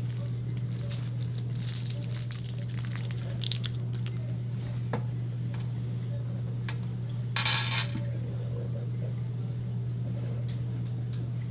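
Chocolate bar wrapper crinkling and rustling in the hands for about three seconds, followed by eating sounds with a few small clicks and one short, loud noisy burst about seven and a half seconds in. A steady low hum runs underneath.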